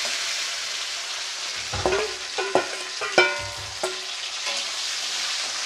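Chopped tomato frying in hot mustard oil in a kadai with a steady sizzle. Between about two and four seconds in, a metal spatula scrapes and clinks against the pan several times, with brief metallic ringing.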